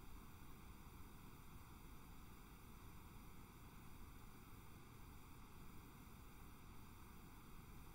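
Near silence: a faint, steady hiss, the noise floor of the recording.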